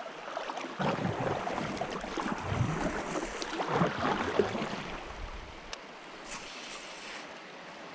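Water splashing and sloshing around a kayak as it is paddled on a river, busier for the first half, then settling to a steady wash.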